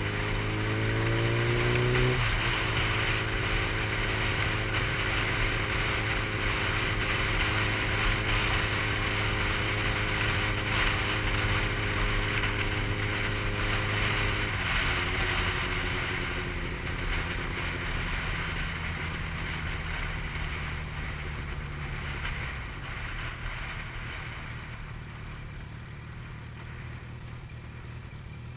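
Sport motorcycle engine under way, with wind noise on the helmet microphone. Its note climbs over the first two seconds, then holds steady at cruise. About halfway through it drops to a lower, quieter note as the rider eases off, and the sound fades toward the end.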